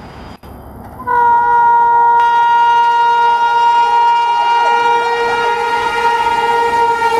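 WAP-7 electric locomotive's horn sounding one long, steady blast, starting about a second in.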